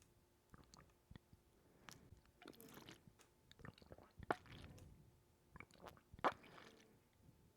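Close-miked ASMR water sounds: irregular wet clicks and squishes, with two louder pops about four and six seconds in.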